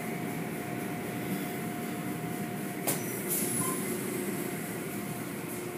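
Automatic tunnel car wash running: a steady din of water spray and machinery as cloth curtains and brushes work over a foam-covered car, with a short knock about three seconds in.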